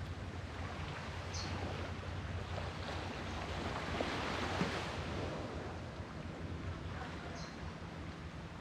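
Sea waves washing on the shore, one wave swelling to its loudest about halfway through and then falling away, over a steady low rumble.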